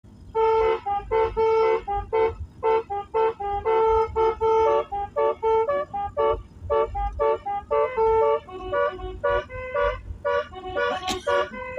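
Basuri multi-tone 'telolet' vehicle horn playing a quick tune of short honked notes, two or three notes a second.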